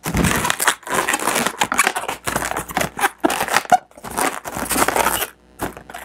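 Inflated latex modelling balloons (260s) squeaking and rubbing against each other as they are twisted by hand: a dense, irregular run of squeaks and scratchy rubbing, with short pauses about a second in and near the end.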